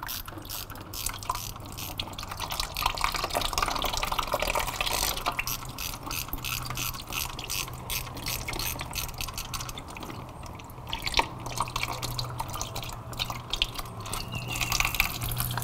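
Engine coolant dripping and trickling from a motorcycle's water pump drain bolt into a drain pan as the bolt is worked loose, in quick, irregular drips with a few small clicks.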